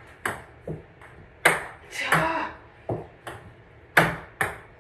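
Ping pong balls bouncing, about seven sharp knocks at uneven spacing, each with a short, light ringing, as the balls hit the table and a small metal cup.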